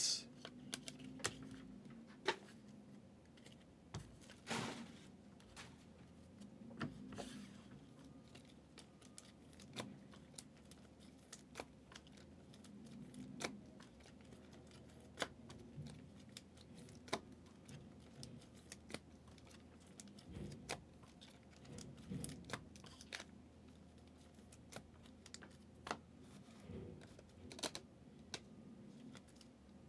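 Faint, irregular clicks and taps, a few each second with uneven gaps, from small hard objects being handled on a tabletop.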